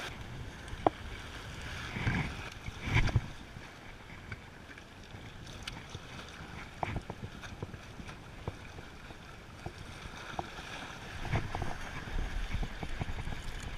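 Waves washing against the rock jetty and wind buffeting the microphone, the water swelling louder a couple of seconds in, with a few sharp clicks from the rod and tackle, the loudest about a second in.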